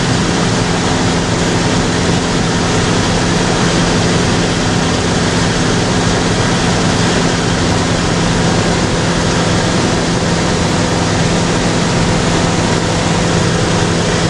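Light aircraft's engine and propeller running steadily in flight, heard inside the cabin as a loud, even rush with a few steady hum tones underneath.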